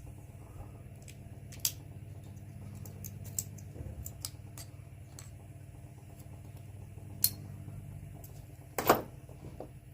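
Hand tools and small metal parts clicking and clinking as a washing machine motor is picked apart, in scattered taps with a louder knock near the end, over a steady low hum.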